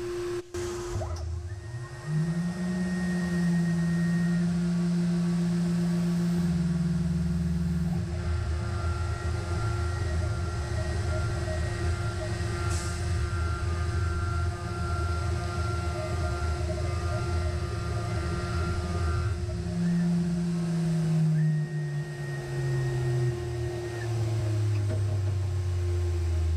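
Tormach PCNC 440 CNC mill spindle with a chamfer bit: it spins up with a rising whine about two seconds in, then runs steadily while the bit chamfers the edge of a brass coin. In the last few seconds it winds down with a steadily falling pitch. A steady hum runs underneath.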